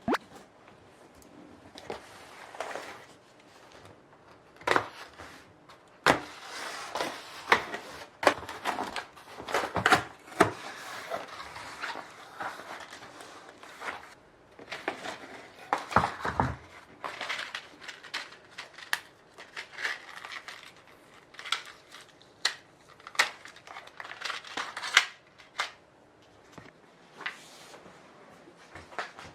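Packaging being handled and opened by hand: irregular crinkling and rustling of plastic wrap and paper, broken by sharp clicks and taps.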